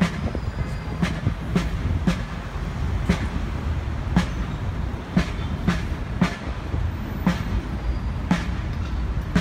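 Marching band drums beating a steady marching cadence, a bass-drum stroke with a crisp snare or cymbal edge roughly once a second, over a low, steady rumble of traffic.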